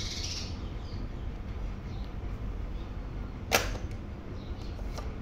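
Sanyo cassette recorder's eject key pressed with a single sharp mechanical click about three and a half seconds in, the cassette door springing open, followed by a few lighter clicks.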